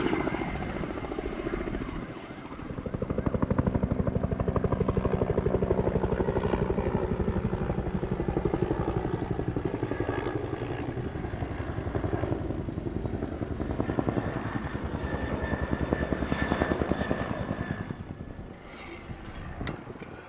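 Firefighting helicopter with a two-bladed main rotor flying past low overhead: the rotor beats in a fast, steady rhythm, loudest through the middle, then fades near the end as the helicopter moves away.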